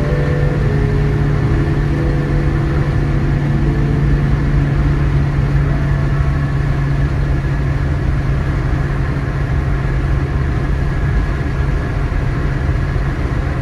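Steady drone of a car cruising on a motorway, heard from inside the cabin: engine and tyre noise at an even speed.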